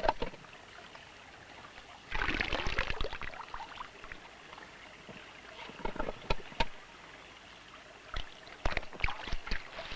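Water splashing in short bursts, with several sharp knocks in between.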